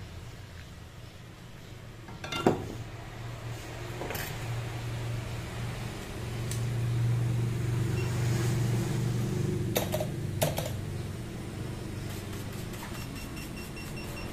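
Hot air rework station blower running steadily with a low hum and hiss, growing louder from about the middle, with a few sharp clicks scattered through.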